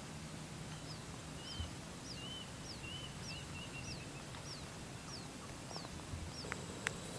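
A bird calling: a run of about ten short, high notes that each slide downward, roughly two a second, with a second, lower note alongside them through the first half of the run.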